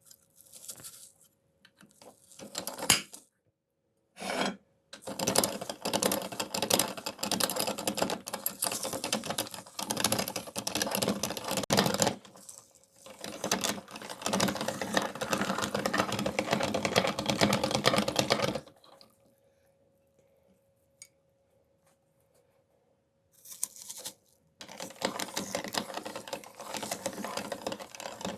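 Meat grinder grinding watermelon: a dense, crackly running noise full of rapid clicks, coming in three long stretches with short bursts and pauses between them.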